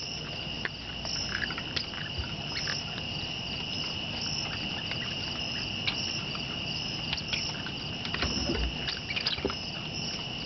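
A steady chorus of night insects, crickets among them, keeps up a continuous high trill with a faster pulsing chirp above it. Scattered light clicks and taps and a few soft scuffs come over it, the most of them in the last few seconds.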